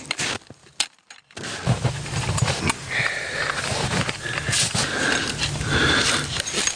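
Metal tent-pole sections being handled and pulled apart at their frozen joints: a few light clicks, then from about a second and a half in a continuous rumbling scrape with short squeaks.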